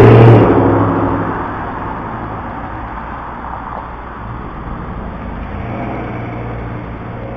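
A loud motor vehicle passing on the street, its engine sound dying away over the first second or two, leaving a low steady rumble.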